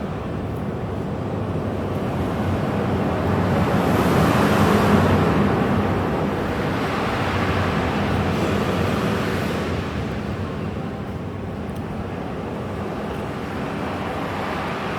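Sea waves breaking on a shore, a continuous rush of surf. It swells loudest about four to five seconds in, surges again around eight seconds, then eases back.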